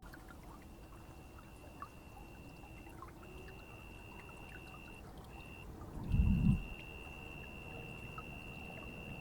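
Steady rain, with a brief deep thud about six seconds in and a faint high-pitched whine that cuts out a few times.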